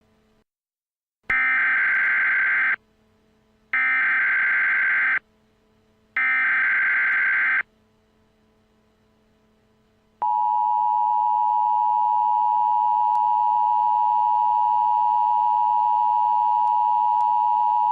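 Emergency Alert System tones: three identical bursts of the SAME digital header, each about a second and a half long, then after a short gap the steady two-tone attention signal (853 and 960 Hz together) held for about eight seconds, which marks the start of a new alert message.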